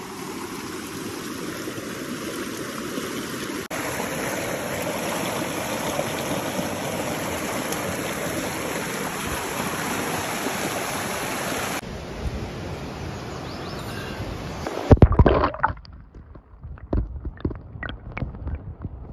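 Rushing water of a rocky creek, a steady splashing rush. About fifteen seconds in there is a loud splash as the camera is plunged into the water. After that the sound is muffled and underwater, with scattered knocks and bubbling.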